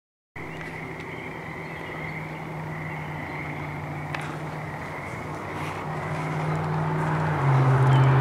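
A motor vehicle's engine hum, steady in pitch and growing steadily louder as it approaches.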